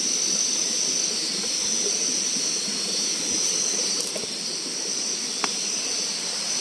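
Steady chorus of night insects, a constant high-pitched buzz, over an even hiss, with a faint click or two near the end.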